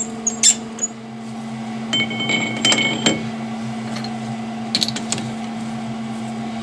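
Metal lathe running with a steady hum between cuts. Around two to three seconds in come a few metallic clicks with a short ringing clink, and a couple more clicks just before five seconds.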